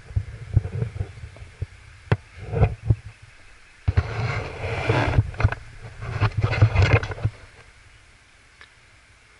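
Wind buffeting a wearable action camera's microphone in uneven gusts, strongest in the middle, mixed with rustling and a few sharp clicks; it dies away near the end.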